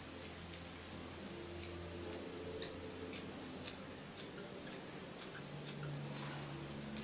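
Sharp ticks at an even pace, about two a second, starting about a second and a half in, over a faint steady low hum.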